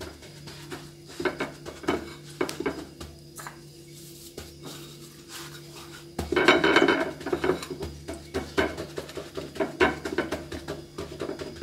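A hand pressing and flattening a small round of bread dough on a ceramic plate dusted with coarse semolina: gritty scraping and light taps against the plate, with a louder stretch of handling about six seconds in.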